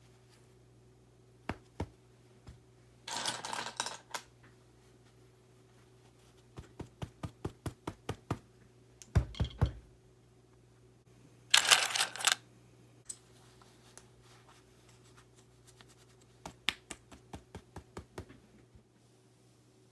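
RK61 mechanical keyboard being handled during cleaning: runs of sharp plastic clicks and taps, some at an even pace of about two a second, with two short noisy bursts of rubbing or scrubbing and a single low thump.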